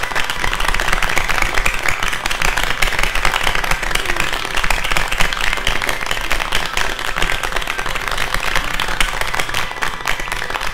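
Applause: many people clapping together in a dense, steady patter that begins to ease off near the end.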